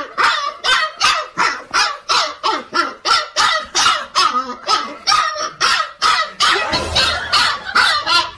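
Husky puppy barking in quick, steady succession, about three short barks a second.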